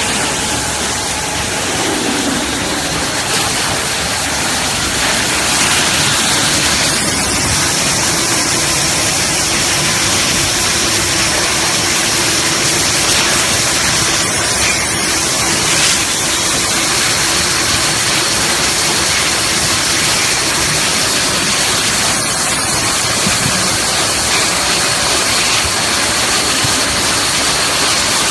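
Packaging-line machinery running steadily: a horizontal labeling machine and roller conveyor beside a heat-shrink tunnel make a continuous hissing, whirring noise, with a faint high whine through much of it.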